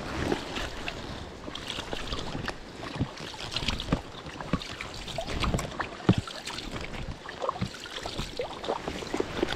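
Water sloshing and splashing, with scattered knocks and clicks throughout.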